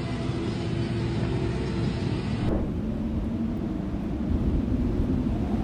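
Engine of a motor vehicle running steadily as a low rumble. About two and a half seconds in, the sound changes abruptly to a duller rumble.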